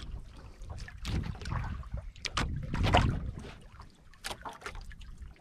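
Water slapping and splashing against a small outrigger boat's hull, with an uneven low rumble and scattered sharp knocks, loudest about three seconds in.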